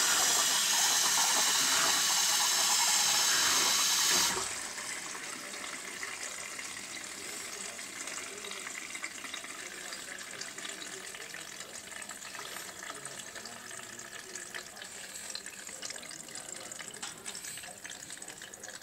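Arçelik 4440 dishwasher, which has a faulty circulation motor, heard from inside. A loud steady rush of water cuts off suddenly about four seconds in, leaving quieter water trickling and dripping with small irregular ticks.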